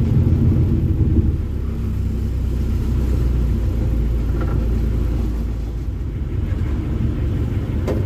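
Fishing boat's engine running with a steady low rumble; its note drops and eases slightly about a second in.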